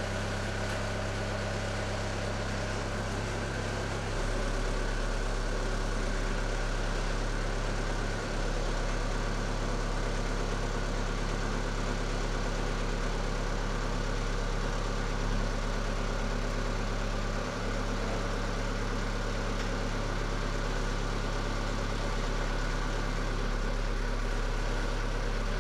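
Engine of a compact loader running steadily while its hydraulic forks raise a heavy load. The low drone drops deeper about four seconds in and holds there.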